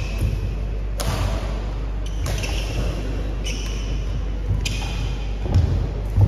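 Badminton rackets striking a shuttlecock back and forth in a doubles rally: about five sharp, ringing hits, roughly one a second, in a large echoing hall. A couple of heavier thuds near the end.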